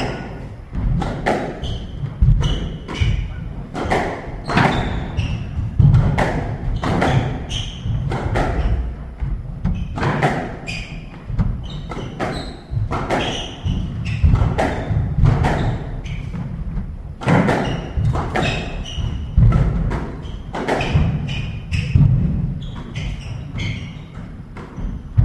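A squash rally: sharp cracks of the ball struck by rackets and hitting the court walls, one to two a second, over the players' footsteps thudding on the wooden court floor.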